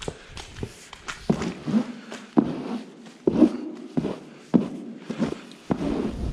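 Long-handled metal scraper raking sawdust bedding and manure across the concrete edge of cow cubicle beds: a run of separate scraping strokes with knocks, about one every half second to second.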